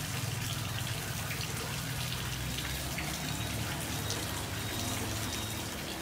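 Steady hiss and patter of falling water, with faint scattered drips and a low steady hum underneath.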